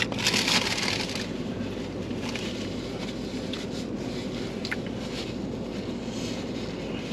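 Paper food packaging rustling and crinkling, loudest in the first second, with scattered small clicks over a steady low hum.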